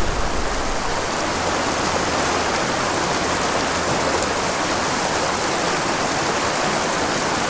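Swift river current rushing steadily over boulders and riffles close by.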